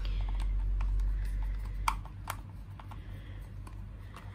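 Small sharp clicks and taps of a screwdriver on the plastic battery cover of a toy RC car's remote as its screw is undone, the loudest click about two seconds in. A low hum underneath stops about two seconds in.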